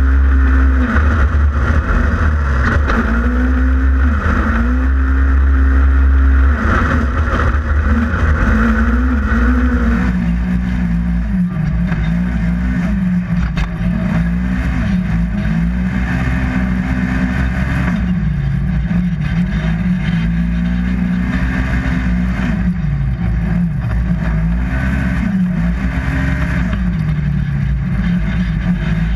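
Polaris RZR XP 1000 side-by-side's parallel-twin engine running hard under racing throttle, its pitch rising and falling again and again as it revs up and backs off. A heavy low rumble sits under it for the first ten seconds or so.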